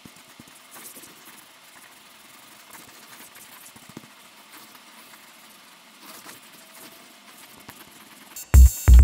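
Faint scratching of a thick black marker drawn over lines on paper. Loud electronic dance music with a heavy thumping beat starts again near the end.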